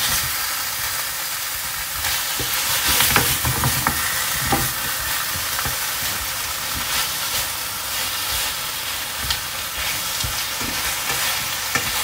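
A seafood stir-fry sizzling steadily in a hot metal pan as it is stirred, with the spatula scraping and clinking against the pan now and then.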